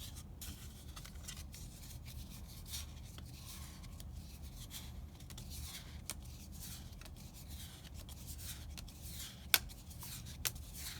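Magic: The Gathering trading cards being handled and slid against one another: soft, uneven rubbing and rustling strokes, with a sharp click about nine and a half seconds in and a lighter one a second later. A low steady hum runs underneath.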